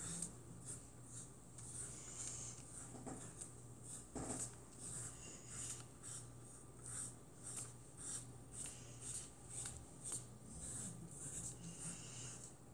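Small paintbrush stroking paint back and forth across a painting board: soft scratchy swishes, about one to two a second, over a faint low hum.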